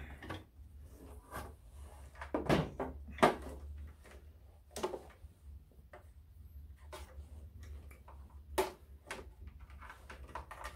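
Scattered knocks and clicks of a Grundig TK-121 portable reel-to-reel tape recorder's case being lifted, turned and handled while its power cord is unwound, the loudest knock about three seconds in. A steady low hum runs underneath.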